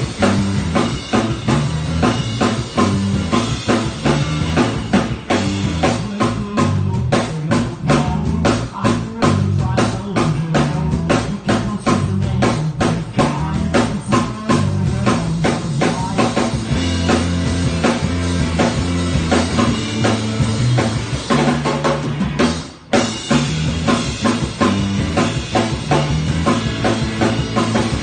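A band playing loud rock music with a full drum kit at the front, driven by a heavy low end. Rapid drum strikes come through the middle, and the music breaks off for a moment about three-quarters of the way through.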